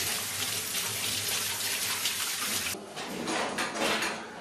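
Kitchen tap running a steady stream into a stainless steel sink while pig's ears are rinsed under it. The water cuts off abruptly about two-thirds of the way through, followed by a few short handling noises.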